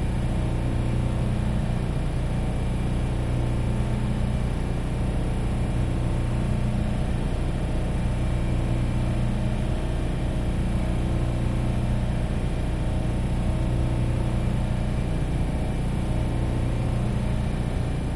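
Industrial air compressor running steadily: a constant low motor hum with a layer of mechanical hiss and rattle.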